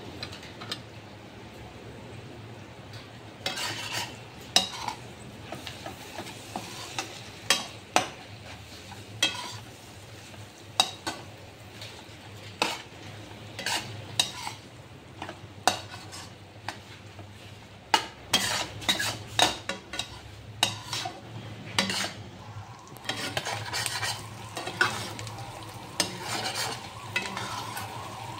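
Chicken intestines frying and sizzling in a nonstick wok while a spatula stirs them, scraping and knocking against the pan in irregular strokes. The strokes start a few seconds in and come thicker in the second half.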